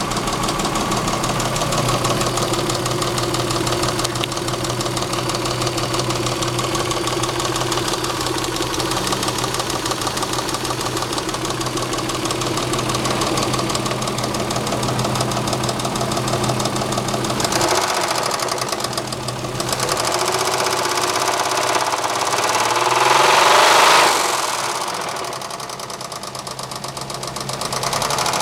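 Saab 3.0L V6 engine running with a rapid, steady knocking and ticking, which the owner takes for a bad lifter and rod knock. The engine speeds up and gets louder about three-quarters of the way through, then drops back.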